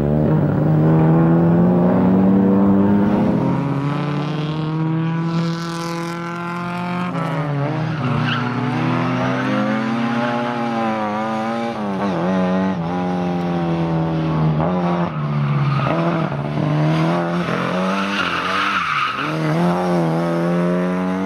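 Lada rally car's engine revving hard, its pitch rising and falling again and again as the car is thrown around a tight course, with tyre squeal as it slides, most clearly about 8 s and 18 s in.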